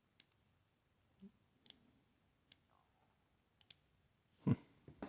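Light, irregular clicks of small metal lock parts being handled, about half a dozen spread apart, with one louder knock near the end.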